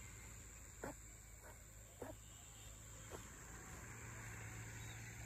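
Faint short animal calls, four of them in the first three seconds and spaced unevenly, over a steady high insect drone in a pond-side wetland.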